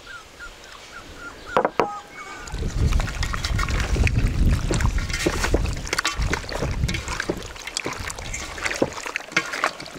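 Hands kneading and squeezing quail pieces in a thick tomato marinade in an enamel bowl, making a dense run of wet squelching and slapping that starts about two and a half seconds in.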